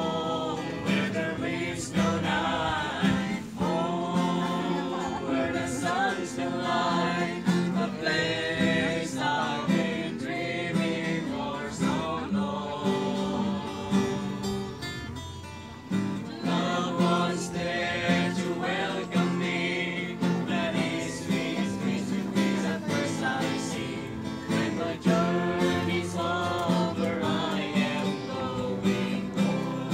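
A small group of male voices singing a song together, accompanied by strummed acoustic guitar.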